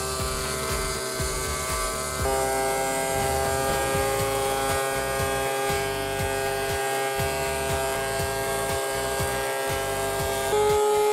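Background music of held chords that change twice, about two seconds in and near the end, over the steady hiss of a DeWalt DW735 thickness planer running.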